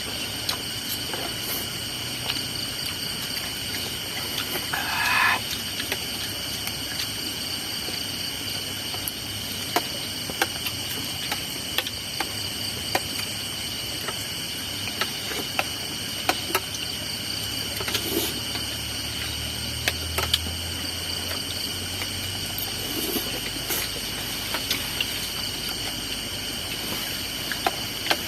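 Steady night chorus of insects shrilling at several high pitches, with a short harsh owl call about five seconds in and scattered light clicks.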